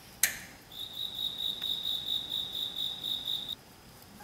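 A sharp metallic click, then a cell phone's alert tone: a steady high chirping trill for about three seconds that cuts off suddenly.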